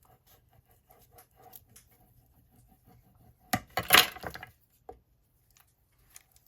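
Faint taps of paper and tools being handled on a craft table, with a short clatter of sharp clicks about three and a half seconds in.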